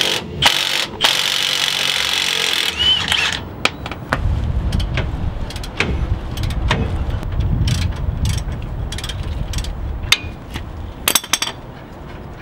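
Milwaukee Fuel cordless impact wrench hammering a rear brake caliper bolt loose: two short bursts, then one run of about two and a half seconds. After that, quieter knocks and clicks of a hand wrench working the upper caliper bolt.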